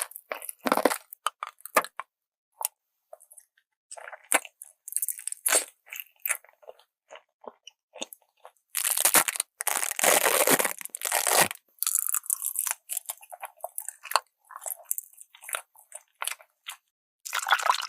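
Close-miked ASMR eating: crisp crunching bites and chewing in short bursts with gaps between, and a longer run of dense crunching from about nine to eleven and a half seconds in.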